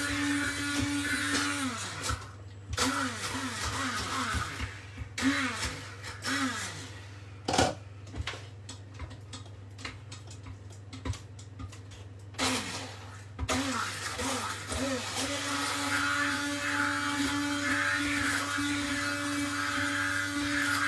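Corded hand blender puréeing hot red pepper dip in a stainless steel pot: a steady motor whine, then several short pulses, each winding down in pitch as it is released. After a pause of a few seconds with only scattered clicks, a few more pulses follow and then a long steady run near the end.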